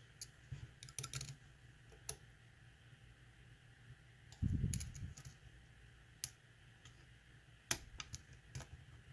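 Scattered faint metallic clicks and ticks of a thin stainless-steel lock pick probing the internals of a lock, with a low dull bump of handling about halfway through.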